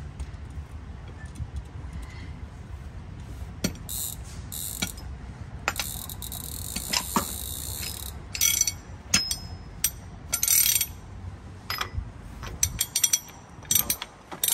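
Socket ratchet clicking in quick runs while it works the spindle nut on a Ford F650's front wheel hub, over a low rumble that drops away near the end.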